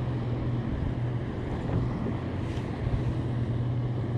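Steady low drone of a boat engine carried across the water, with wind buffeting the microphone.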